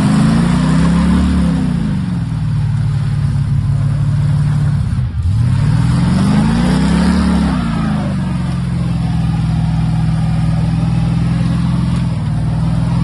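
Big-block V8 of a 454-badged pickup doing a burnout: the engine revs up and back down twice, then holds steady at high revs while the rear tyres spin and smoke.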